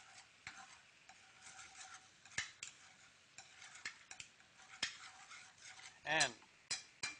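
A utensil stirring in a sauté pan, with scattered light taps and clinks of metal on the pan, as butter is melted into a wine sauce.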